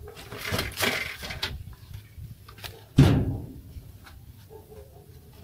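Handling noise: a sweater rustling and scraping against the handheld camera's microphone, with one sharp, heavy thump about three seconds in.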